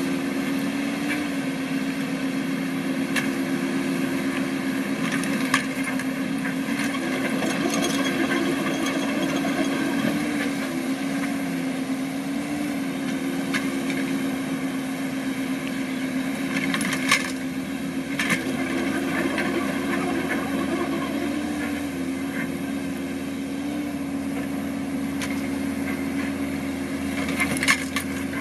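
Kobelco SK045 mini excavator's diesel engine running steadily, its pitch dipping slightly now and then as the arm and bucket work. A few sharp knocks or clanks cut through, the loudest about two-thirds of the way in and near the end.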